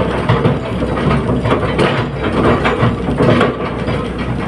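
Caterpillar 320D hydraulic excavator working: its diesel engine runs steadily under a string of irregular metallic clanks and knocks.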